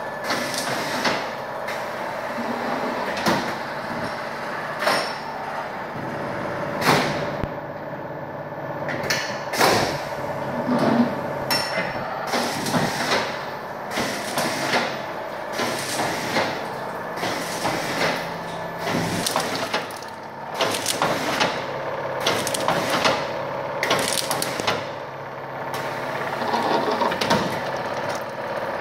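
An automatic honey extraction line running: the Boutelje honey loosener and its frame conveyor give a steady machine hum, with frequent irregular metallic clacks and knocks as the wooden comb frames are moved and worked.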